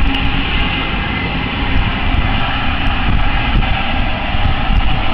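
Wind buffeting the microphone over the steady rushing of a large open flame, as pyrolysis gas from a homemade plastic-to-fuel distiller burns off.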